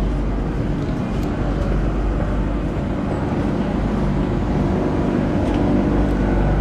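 Steady low rumble and hum of an Airport Rail Link train standing at an underground platform with its doors open, mixed with the general noise of passengers boarding.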